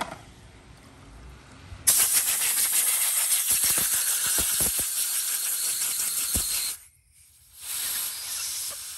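Compressed air hissing from an air blow gun pressed to the valve port of a CMEP-OL recovery pump's cylinder head, blowing the valve out to check that it opens freely. A loud blast of about five seconds begins about two seconds in and cuts off sharply, and after a short break a second, quieter blast follows near the end. This valve turns out a little sticky.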